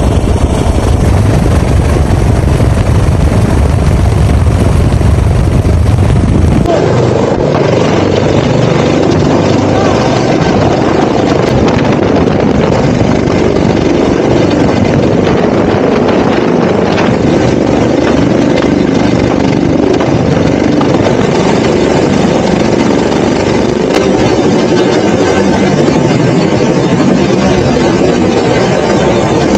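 Helicopter noise: a Pantera (AS565 Panther) military helicopter's rotor and turbines running loud and steady while it hovers close overhead. The sound changes abruptly about six and a half seconds in, from a deep low rumble to a higher, rougher rush.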